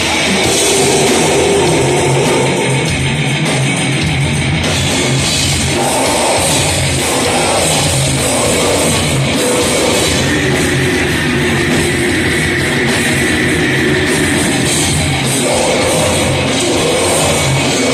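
Heavy metal music played loud and without a break: distorted electric guitars over a drum kit.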